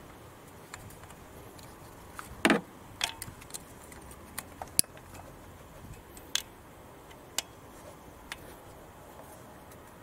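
A string of small, sharp clicks and taps, about eight or nine, the loudest about two and a half seconds in: the plastic fittings of a diesel injector leak-off return line being handled and fitted onto the injectors of a Kia 2.0 CRDi engine.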